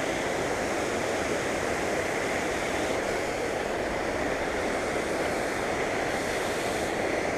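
Creek water running, a steady rushing noise.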